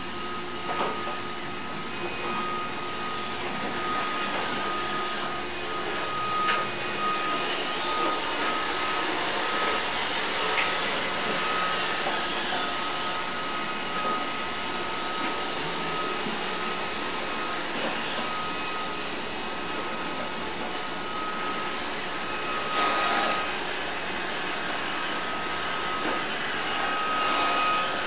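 iRobot Roomba robot vacuum running: a steady whir of its motor and brushes with a thin, steady whine, and a few brief knocks.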